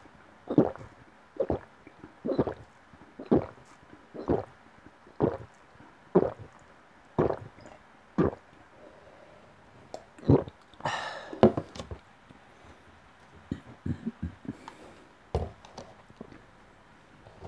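A person gulping a drink in steady swallows, about one a second, eight or nine in a row. After a pause comes a breathy exhale, then a few light knocks as a glass teapot is set down on the table.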